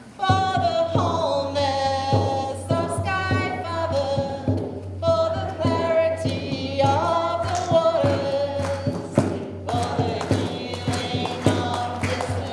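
Singing voices with musical accompaniment, with sharp percussive hits joining in the second half and a steady low hum underneath.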